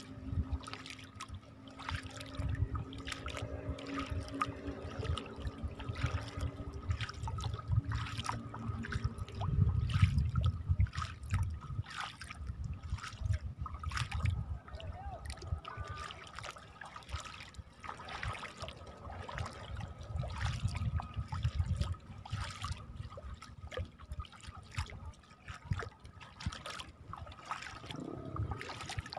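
Shallow seawater on a tidal mudflat trickling and splashing, with many short wet clicks and splashes, and bursts of low rumble.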